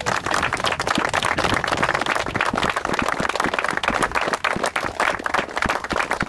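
A small group of rugby players clapping their hands in applause, a dense, even patter of claps.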